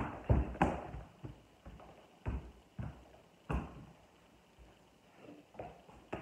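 Dull thumps of a soccer ball being kicked with bare feet and dropping on a wooden floor, with footfalls, at irregular intervals. There is a lull of about two seconds past the middle, then a few fainter thumps near the end.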